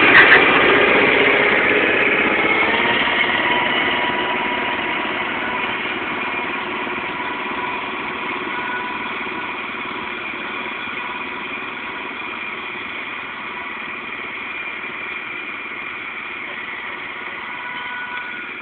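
Kubota B6000 compact tractor's two-cylinder diesel engine running steadily while pulling a plough through the soil, growing steadily fainter as the tractor moves away.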